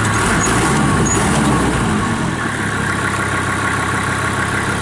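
Kubota M5400 tractor's diesel engine running steadily.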